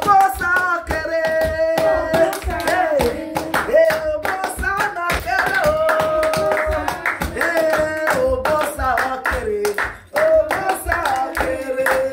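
Praise song sung by a woman's voice, with hands clapping a steady beat.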